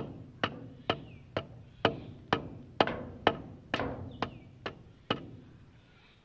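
Sharp knocks struck at a steady pace, about two a second, each ringing briefly, stopping about five seconds in.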